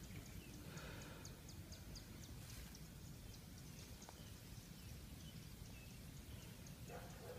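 Faint outdoor ambience: a low steady background rumble under a rapid, evenly spaced series of faint high chirps, about four a second.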